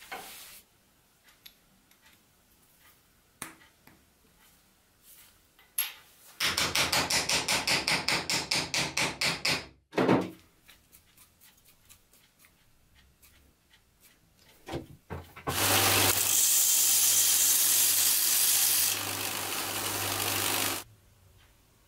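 A hand file scraping a metal part held in a bench vise, about four quick strokes a second for some three seconds, followed by a single knock. Then a belt grinder runs for about five seconds with a steady hum, easing slightly in level before it stops.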